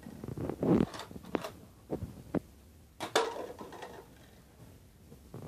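Nerf Roughcut 2x4 blaster firing foam darts, which it shoots two at a time, while plastic cups are knocked over and clatter onto the floor. It comes as a string of separate sharp knocks and clacks, the loudest about three seconds in.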